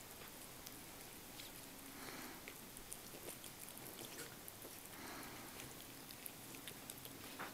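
Cat chewing and licking wet food from a bowl: faint, soft, irregular clicks and smacks, with a soft breathy swell about every three seconds.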